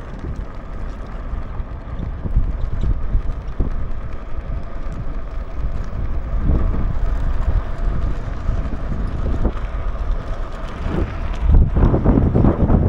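Wind buffeting the microphone on a moving motorbike, with the motorbike's engine running underneath. Near the end, louder knocks and rubbing as the dog's body presses against the camera.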